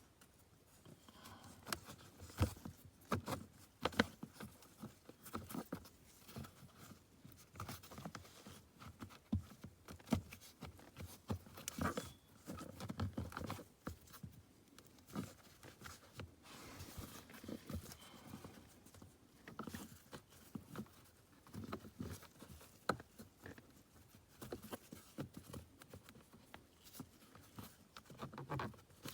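Irregular clicks, taps and rustles of hands working a wiring cable into plastic trim and panels, tucking it out of sight.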